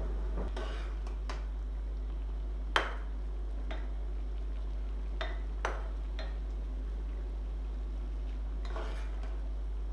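Scattered light clinks and knocks of kitchen utensils against dishes, the loudest about three seconds in, over a steady low hum.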